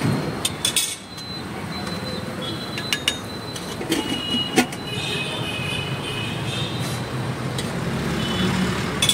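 Metal spatula tapping and scraping on an iron dosa griddle as a pizza dosa is spread and cut, in sharp clicks with one louder knock about four and a half seconds in. Steady street traffic noise underneath.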